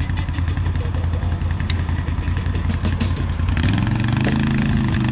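ATV engine running steadily, stuck in a mud hole; about three and a half seconds in, background music with a steady beat comes in over it.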